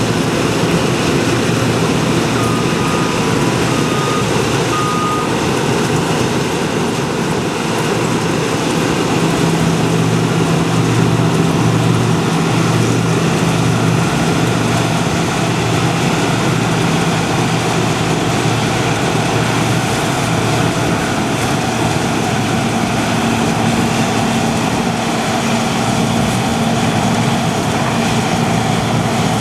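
Heavy diesel farm machinery running steadily, its engine note shifting slightly in pitch. A few short electronic beeps sound about two to five seconds in.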